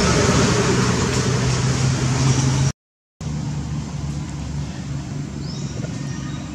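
Steady low hum over outdoor background noise, cut off by a half-second dropout about three seconds in; after it the hum is quieter, with a short high rising chirp near the end.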